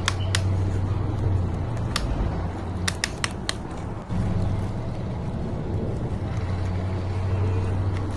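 Radio-controlled truck's small electric motor and gears running with a steady low hum. Several sharp plastic clicks come over it: one near the start, one about two seconds in and a quick run of four around three seconds in.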